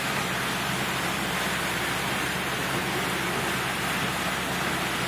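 Steady rush of heavy hurricane rain and flood water, heard from inside a car driving through a flooded street.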